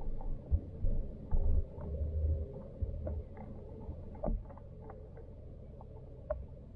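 Underwater sound in a backyard pond, heard through a submerged camera: a steady low hum, a run of dull thumps and bumps in the first three seconds, and scattered small ticks and clicks.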